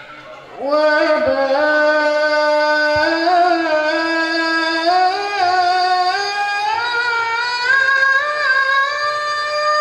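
A woman's solo voice chanting devotional Islamic vocal art through a microphone: after a brief pause she starts about a second in on one long, ornamented held note that climbs in pitch in small steps.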